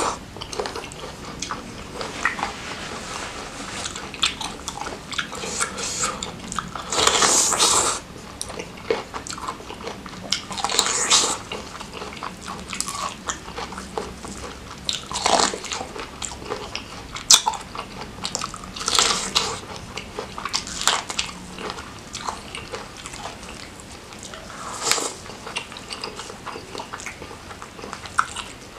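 Close-miked eating of corn on the cob and seafood in thick Padang sauce: repeated bites, crunching and chewing. Louder noisy bursts come every few seconds.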